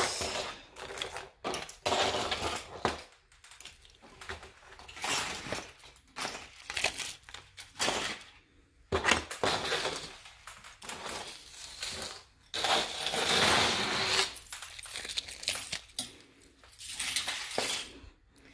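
Costume jewelry (beaded bracelets, dangle earrings and metal chain necklaces) clinking and rattling as it is picked up and moved about on a table, in irregular bursts with a longer stretch of rattling a little past two-thirds of the way through.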